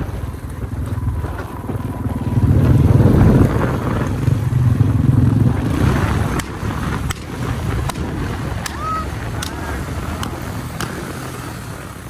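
Motorcycle engine running on the move, swelling louder about two seconds in and easing back after about six seconds, with a few faint sharp ticks near the end.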